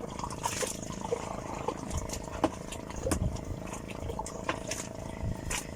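Small boat engine running steadily with a low hum, with scattered light clicks and knocks from handling on board.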